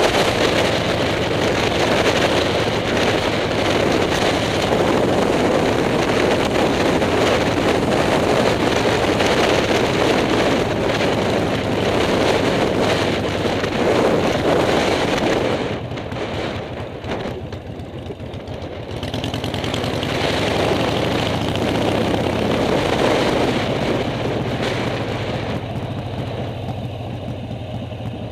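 Harley-Davidson Shovelhead V-twin motorcycle engine running while riding, under the rush of wind over the microphone. It eases off for a few seconds around the middle, picks up again, then gradually drops toward the end.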